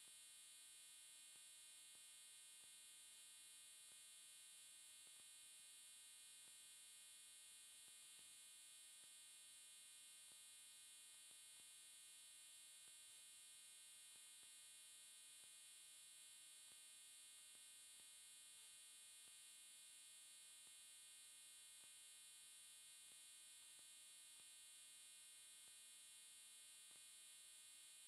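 Near silence: only a faint, steady hum and hiss, with no sound of the crumbling.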